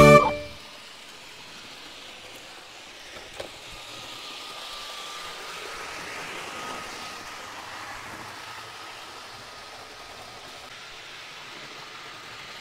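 Bachmann HO scale model trains running on the layout's track: a steady whir of motor and wheels with a faint, slightly wavering motor whine. It swells a little in the middle and has one small click about three seconds in.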